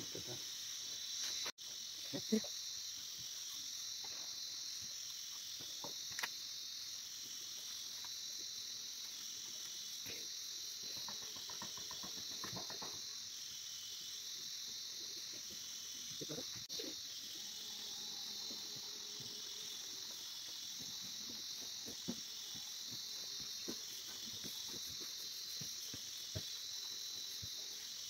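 A steady, high-pitched chorus of insects chirring, with a few faint knocks and taps.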